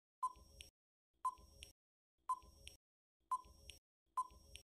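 Countdown timer sound effect: five short beeping ticks, about one a second.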